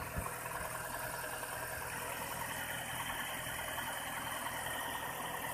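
Nissan X-Trail T31's 2.5-litre four-cylinder petrol engine idling steadily and evenly, with no knock. There is a single short thump right at the start.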